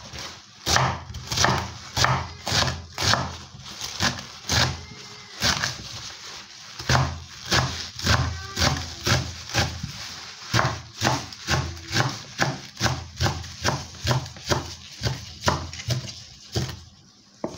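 Kitchen knife chopping cocoyam leaves on a wooden cutting board: an even run of knocks of the blade on the board, about two a second, stopping shortly before the end.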